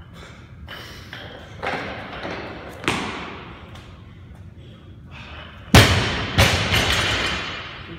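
Barbell loaded with bumper plates dropped from overhead onto the gym floor. It lands with a loud bang near six seconds in, bounces with a second bang and a few smaller knocks, and the plates ring as it settles. A few lighter knocks come earlier.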